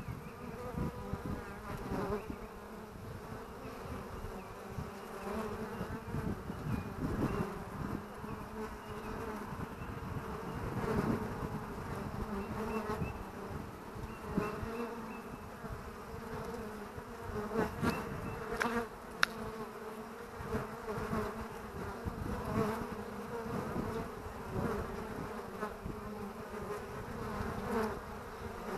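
Honeybees buzzing at the hive entrance: a steady hum of many bees flying in and out, with louder buzzes swelling and fading as single bees pass close. One sharp click about two-thirds of the way through.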